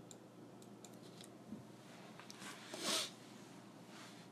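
Quiet room hiss with a few faint light clicks, then a short soft swish about three seconds in and a weaker one near the end: a stylus tapping and stroking across a tablet's writing surface.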